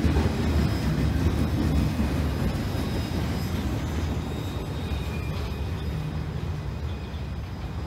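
Freight train boxcars rolling past on steel wheels, a steady low rumble that slowly fades as the last cars go by.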